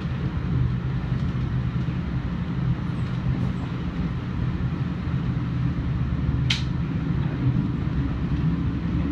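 Steady low rumble of a moving passenger train, heard from inside the car. A single brief, sharp high sound cuts through about six and a half seconds in.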